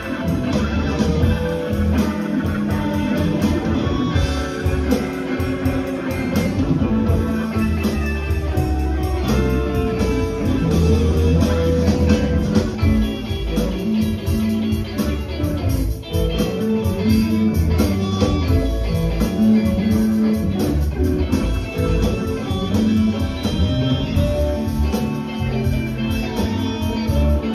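A live electric blues band playing an instrumental passage: electric guitar and bass over drums, with a harmonica played into the microphone.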